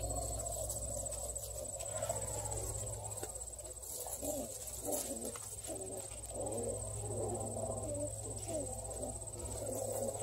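Crickets trilling steadily, with Redbone coonhound puppies and a beagle growling and scuffling as they play-wrestle from about four seconds in.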